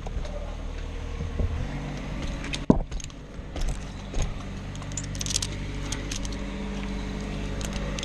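Metal climbing hardware clinking and jingling, with one sharp knock about three seconds in, over the steady drone of an engine running.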